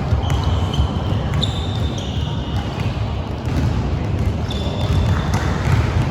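Basketball game sounds in a gym: a ball bouncing on the court, several short high sneaker squeaks, and players' voices over a steady low din of the hall.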